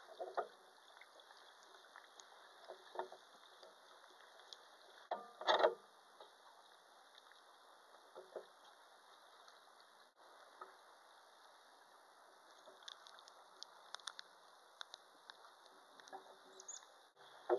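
Underwater sound picked up by a waterproof pocket camera in its housing: a faint steady hiss with scattered small clicks, and a louder cluster of knocks about five seconds in.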